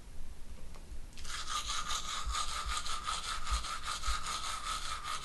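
Electric toothbrush switched on about a second in, buzzing steadily while the bristles scrub against the teeth in repeated rasping strokes.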